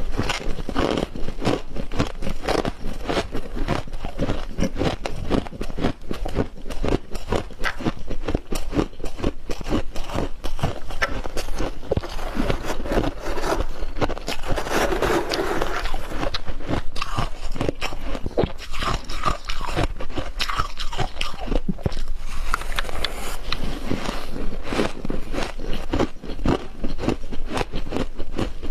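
Freezer frost being bitten and chewed close to the microphone: a continuous, dense run of crisp crunches.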